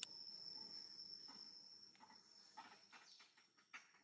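Quiet outdoor ambience: a faint, steady, high-pitched insect whine, with a few soft ticks near the middle and end.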